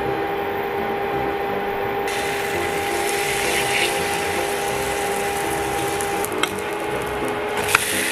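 Cabbage pancake batter frying in hot oil in a pan: a steady sizzling crackle that turns brighter and hissier about two seconds in. A steady tone runs underneath, and there are a couple of sharp clicks of a metal utensil against the pan near the end.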